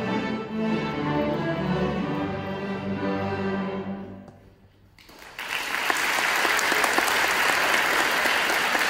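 A student string orchestra of violins, violas, cellos and basses plays the closing bars of a tune in 6/8 time. Its final chord dies away about four seconds in, and after a moment of quiet the audience breaks into steady applause.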